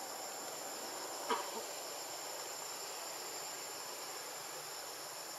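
Steady, high-pitched insect chorus, with one short sharp click about a second in.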